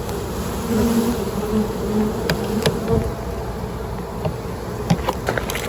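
A honeybee swarm buzzing steadily close up, a low hum. A few short sharp clicks come in the middle and near the end.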